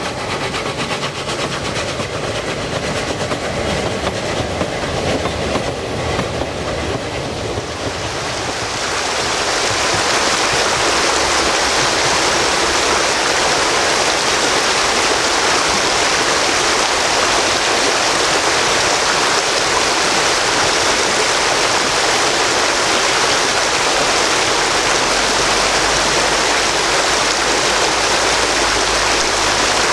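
Narrow-gauge wooden railway coaches rolling past close by, their wheels giving a steady clickety-clack over the rail joints. About eight seconds in, this gives way to the steady, even rush of flowing stream water, louder than the train.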